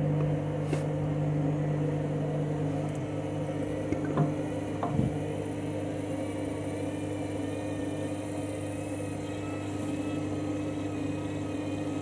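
Front-loading washing machine running a faulty spin cycle, its drum turning with sudsy water still inside, making a steady motor hum with two light knocks about four and five seconds in. The owner calls it a dodgy spin cycle.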